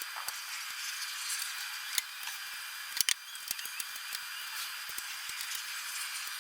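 Sharp clicks and light knocks of tool-cart parts being handled during assembly, scattered over a steady hiss. The loudest is a close pair about three seconds in.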